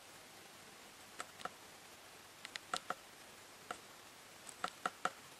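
Light, irregular clicks and taps of hands working Play-Doh on a wooden tabletop, about a dozen in all, with quick clusters near the middle and near the end.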